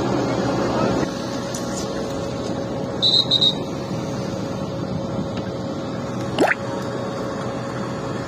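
Steady hum of vehicle engines idling at the roadside. There is a short high beeping about three seconds in and a quick rising whistle about six and a half seconds in.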